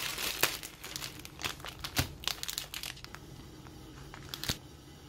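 Hands handling a stuffed passport-size traveler's notebook: papers crinkling and rustling, thinning out after about three seconds to a few light taps and clicks.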